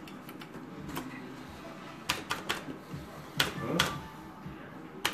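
Merkur 'First Dynasty' slot machine being played: a run of sharp clicks of its buttons being pressed, in clusters about two seconds in and again near four seconds, over faint machine tones and murmur.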